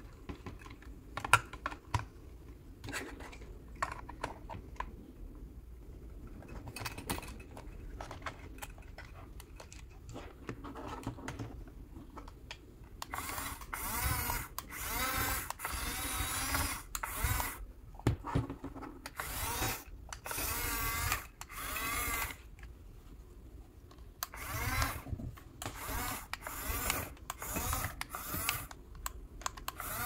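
Scattered plastic clicks as the toy excavator is handled. Then, about halfway through, its small electric gear motors whine in bursts of a few seconds each, the pitch wavering, as the remote-control excavator drives and works its arm.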